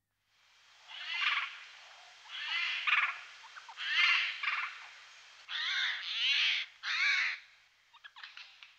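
Eurasian jays giving a series of harsh, rasping screech calls, about one a second, with a few faint ticks near the end.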